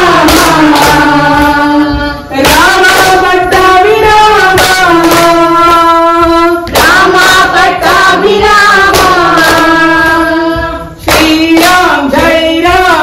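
Devotional Rama bhajan singing in long, gliding sung phrases, with frequent hand claps keeping the beat. The singing breaks briefly about two seconds in and again near eleven seconds.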